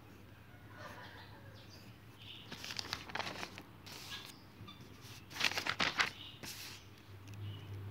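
Notebook paper rustling and crinkling as the pages are handled, in a few short bursts, the loudest a little past the middle.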